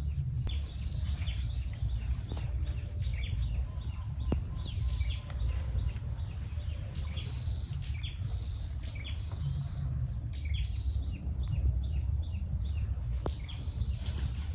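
Birds calling with many short, falling chirps, repeated all through, over a steady low rumble.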